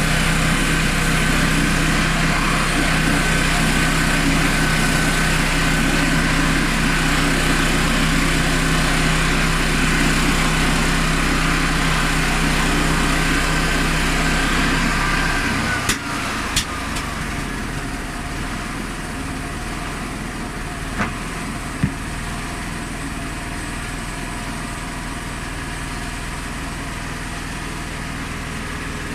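Honda GX390 single-cylinder petrol engine on a homemade portable sawmill running steadily with a high whine. About halfway through, the whine falls away and the sound drops to a quieter steady run, followed by a few sharp clicks.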